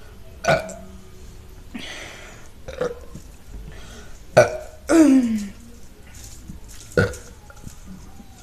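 A woman burping repeatedly: about five short belches spaced a second or two apart. One in the middle is longer and drops in pitch as it goes.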